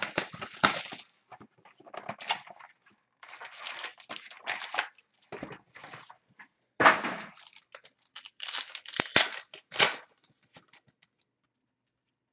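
A wrapper of a Totally Certified basketball card pack being torn open and crinkled, in irregular rustling spurts, with a couple of light knocks near the end. It goes quiet about ten seconds in.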